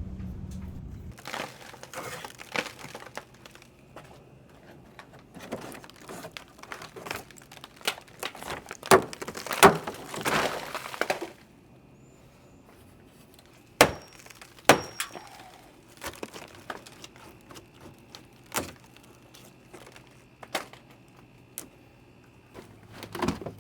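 Tools knocking, cracking and scraping at an old through-hull fitting to work it out of a wooden boat's hull. A dense run of irregular knocks and cracks gives way to a few sharp single strikes spaced a second or more apart.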